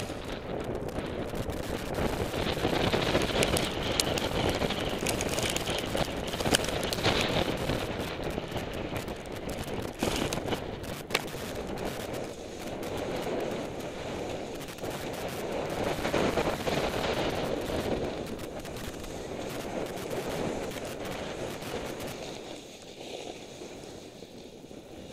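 Rushing, crackling noise of a descent down a snow slope heard on a helmet camera, swelling and easing in waves and dying down near the end as the rider slows.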